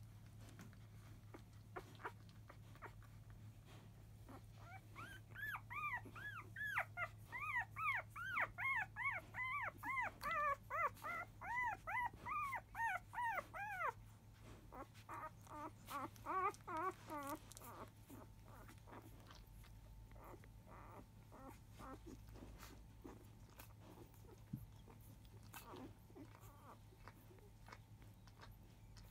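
Newborn Labrador Retriever puppy crying while nursing: a fast run of high squeals, each rising then falling, about two or three a second for several seconds, then a shorter burst after a brief pause. This is the fuss a newborn puppy makes at the start of a feed.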